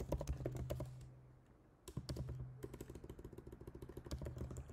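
Typing on a computer keyboard: a cluster of keystrokes, a pause of about a second, then a rapid, even run of key clicks.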